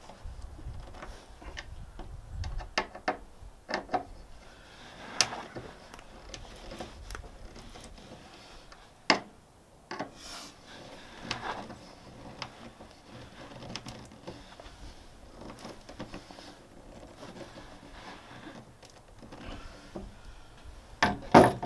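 Hand screwdriver driving screws into a RAM mount ball base on an aluminum jon boat deck: scattered metal clicks and scrapes, with a sharp knock about nine seconds in and a louder clatter near the end.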